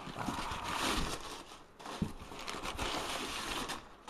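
Rustling and crinkling of cardboard and packing material being rummaged through in a shipping box, with a sharp knock about two seconds in.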